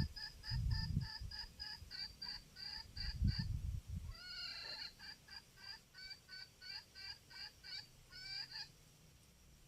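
A fowl calling in two long runs of rapid repeated notes, about four a second, with a short break in between. Gusts of low wind rumble on the microphone come through at the start and around the middle.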